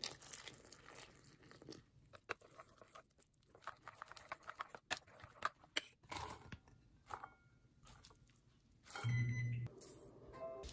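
Water poured from a cup onto flour in a ceramic bowl, then minced mushrooms and chopped vegetables dropped into the bowl with a run of small scattered taps and crunches. About nine seconds in, a short loud hum lasts under a second.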